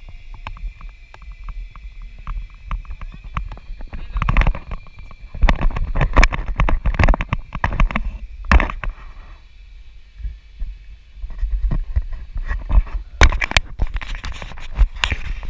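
Wind buffeting and rustling on the camera's microphone in gusts, with knocks of handling, over a faint steady high whine that fades out about two thirds of the way through.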